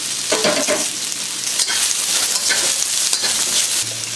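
Sliced onions, ginger and red and green bell peppers sizzling steadily in hot oil in a wok on high heat, with a couple of brief knocks.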